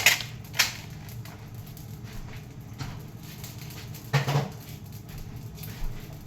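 Kitchen handling sounds: two sharp clicks of utensils or dishes at the start, light tapping and ticking, and another knock about four seconds in.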